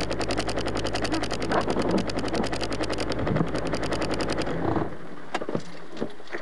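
Car engine idling with a rapid, even clatter and a low hum, switched off about four and a half seconds in, followed by a few sharp clicks.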